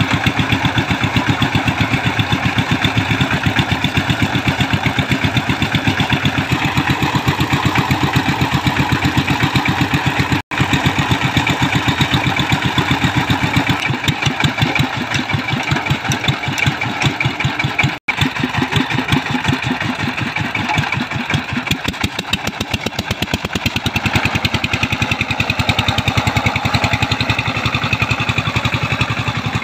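Single-cylinder diesel engine of a two-wheel power tiller running loud and steady, a fast even chugging of firing strokes.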